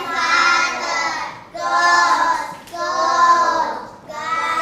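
A class of young children reading English phonics words aloud in unison, each word drawn out in a sing-song chant, about one word a second.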